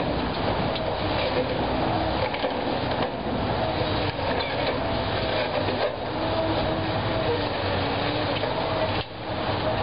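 Long-reach demolition excavator working steadily, its engine and hydraulics running with a whine that comes and goes, over scattered knocks and crunching of concrete being broken down.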